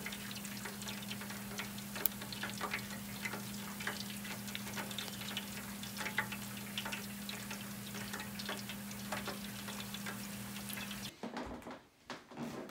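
Hush puppies frying in hot oil in an electric deep fryer: a steady, dense crackle of popping oil over a low hum. It cuts off about eleven seconds in, leaving quieter room sound.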